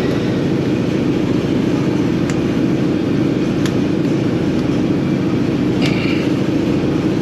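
Tug boat machinery running steadily with a loud, low, unbroken drone, with a few faint sharp clicks over it.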